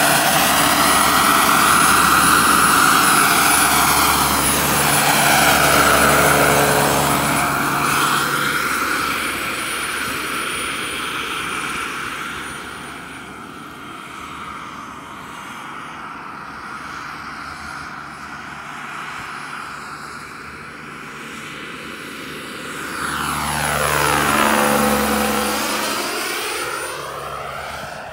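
Jakadofsky 5000 turbine-powered RC Chinook model helicopter flying, its turbine and twin 1.5 m tandem rotors running. It is loud at first and fades as it moves off. It swells again for a close pass about 23 to 25 seconds in, with its pitch dropping as it goes by, then fades away.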